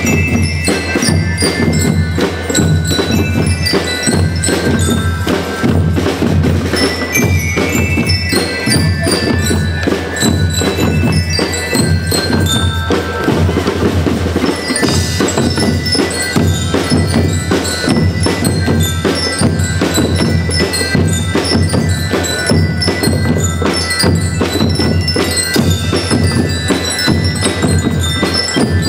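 School rhythm band playing: bell lyres ring out a melody over a steady beat of snare and bass drums.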